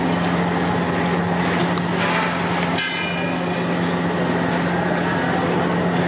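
Battered fish pieces frying in a kadai of hot oil, the oil hissing steadily over a constant low mechanical hum. A single sharp knock about three seconds in.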